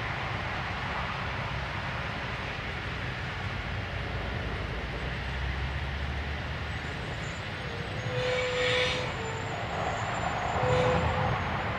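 Loaded ballast hopper cars rolling slowly past on jointed rail, a steady rumble of wheels on track. Brief squealing tones cut in about eight seconds in and again near the end.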